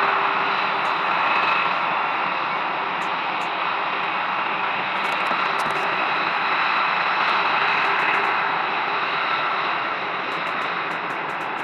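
F-22 Raptor twin turbofan jet engines running steadily at taxi power: an even rushing whine with a high tone held over it.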